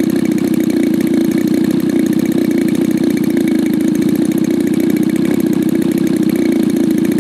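RCGF 26cc single-cylinder two-stroke gasoline engine of an RC Pitts Special biplane running steadily at idle, close by and loud.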